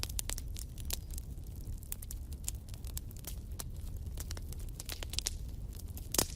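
Wood fire in a fireplace crackling, with irregular sharp snaps and pops over a steady low rumble of the flames, and one louder pop near the end.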